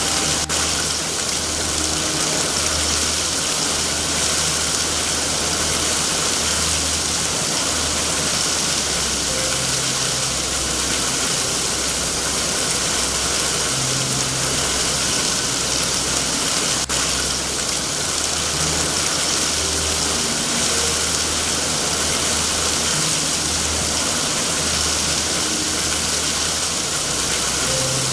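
Steady heavy rain hiss with a low, uneven rumble beneath it. Two sharp clicks come through, one near the start and one about two-thirds of the way in.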